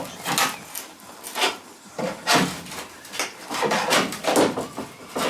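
A series of irregular knocks and clatters, about one to two a second, from work inside the van's cargo area.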